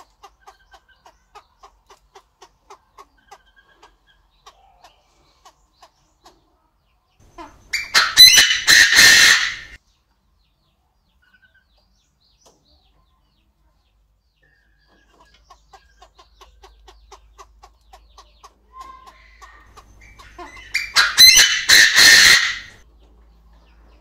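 Chinese francolin crowing twice, loud harsh calls of about two seconds each, one about eight seconds in and one near the end. Between them, a run of soft, evenly spaced clucking notes about two or three a second.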